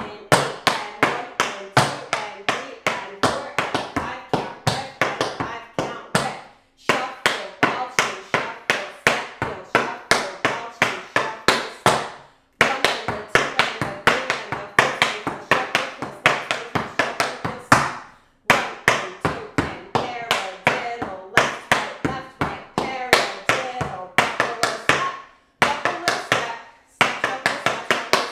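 Metal taps on tap shoes striking a wooden tap board in fast, even runs of paradiddles, broken by short pauses about every six seconds.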